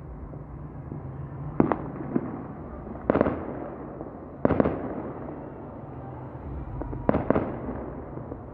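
Fireworks going off: about five sharp bangs a second or two apart, some in quick pairs, over a steady low rumble.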